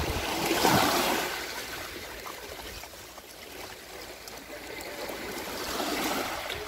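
Shallow sea water washing and trickling over a pebble shore, swelling twice: once about a second in and again near the end.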